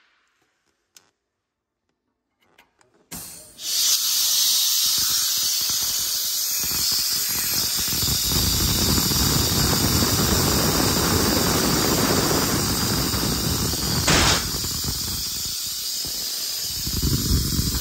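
Compressed air hissing steadily through a cylinder leak-down tester into a cylinder of a Deutz diesel engine with low compression; the hiss starts suddenly about three and a half seconds in, and a sharp click comes near the end.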